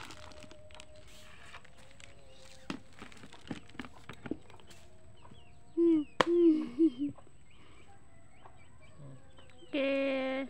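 A chicken clucking: a quick run of short clucks about six seconds in, then one longer, steady call near the end.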